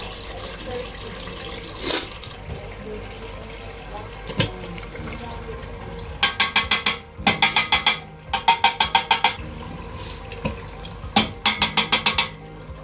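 A small metal seasoning tin shaken over a cooking pot in four quick rattling runs of about seven shakes a second, through the second half. Before them, a steady low hiss of the sauce simmering in the pot.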